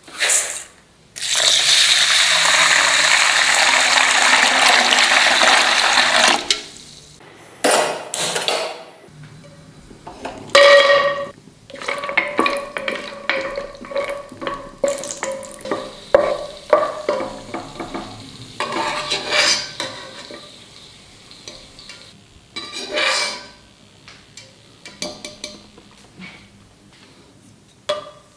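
Water pouring steadily into a steel bowl of basmati rice for about five seconds. Then cashews sizzle as they fry in oil and ghee in a pan, with a spatula stirring and scraping and knocking against the pan now and then.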